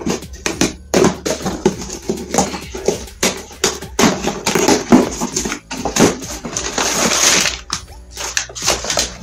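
A cardboard delivery box being ripped open by hand: repeated sharp tearing and crinkling, with a longer continuous tear about seven seconds in.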